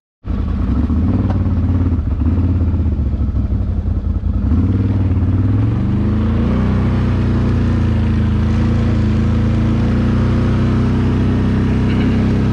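Can-Am Outlander 1000R ATV's V-twin engine running under way on a dirt trail, heard from the rider's seat. The engine note rises about five seconds in, then holds steady.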